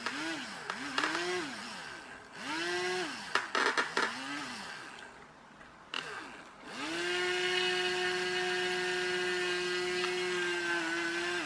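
Small electric motor from an RC flying wing, wired straight to a battery with clip leads, whining up to speed and winding down several times in short runs, with a few clicks as the leads touch. It then runs steadily for about four seconds before cutting off. Run directly from the battery it works absolutely fine, so the motor itself is not the fault.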